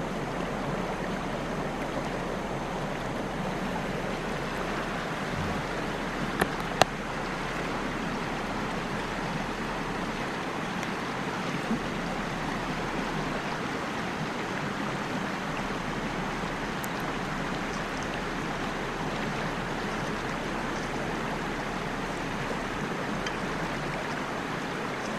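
Steady rushing of river water, with a couple of sharp clicks about six and a half seconds in.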